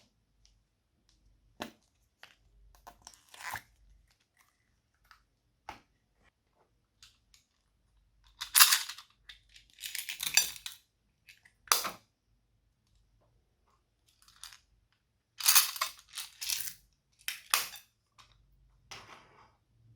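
Slime being squished and worked by hand, giving irregular crackling, crunchy bursts. The loudest clusters come about eight to eleven seconds in and again about fifteen to eighteen seconds in.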